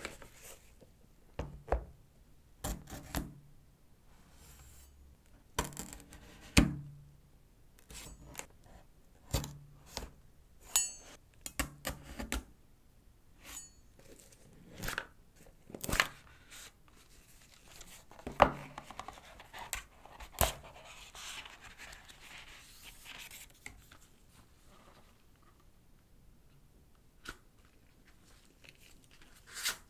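Smartwatch packaging being handled and opened: a scattered series of sharp taps and clicks, with a few seconds of softer scratchy noise past the middle.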